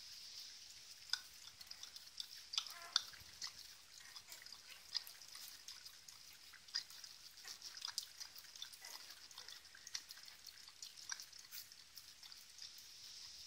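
Nine-day-old puppies suckling, a faint run of irregular wet clicks and smacks.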